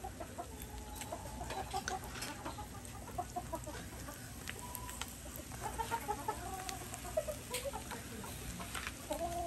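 Chickens clucking in short, scattered calls, with faint crackles from the charcoal fire.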